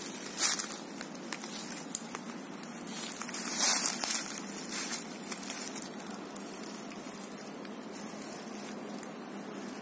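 Footsteps crunching and rustling through dry bamboo leaf litter, with a few crackling steps and a longer rustle in the first half, then steadier and quieter.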